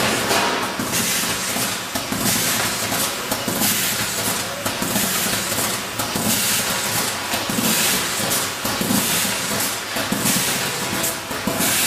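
Automatic strawberry-punnet packing machinery (GEF-700, NED-120 and EXA-500 units) running: a steady mechanical hiss and hum with frequent irregular clacks.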